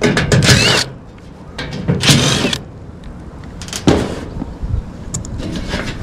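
DeWalt 20V cordless drill whirring in two short runs as it backs out the screws of a packaged gas unit's sheet-metal access panel, followed by a sharp click and rattling as the panel is handled.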